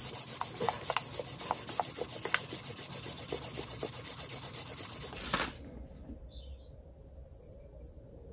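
2000-grit wet-and-dry paper, damp with WD-40, rubbed in quick back-and-forth strokes around a motorcycle's chrome fork tube to smooth out rust pitting, with a few short squeaks in the first couple of seconds. The rubbing stops about five seconds in.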